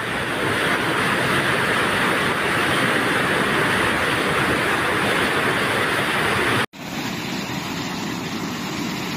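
Steady rushing of a muddy floodwater torrent. It cuts off abruptly about seven seconds in, and a slightly quieter rush of floodwater pouring over a weir follows.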